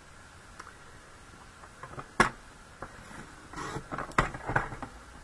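A plastic paper trimmer being worked to cut card: a sharp click about two seconds in, then a short scrape and several clicks and knocks.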